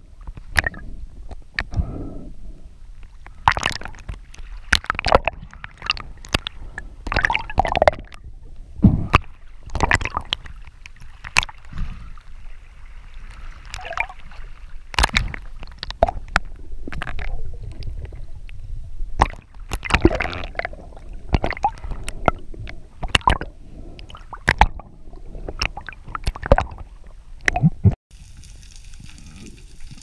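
Underwater sound through a camera housing: water gurgling and sloshing with frequent irregular clicks and knocks over a low rumble. Near the end it cuts to a steady hiss.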